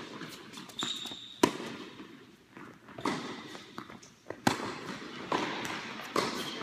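Tennis ball struck back and forth by rackets in a rally, sharp pops roughly every second and a half with ball bounces between, echoing in an indoor court hall; a short high squeak about a second in.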